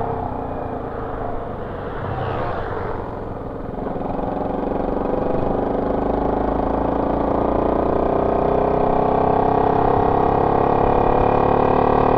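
Honda C70 motorcycle's small single-cylinder four-stroke engine running under way through its exhaust. After an easing-off in the first few seconds, its note climbs steadily in pitch and gets louder as the bike accelerates.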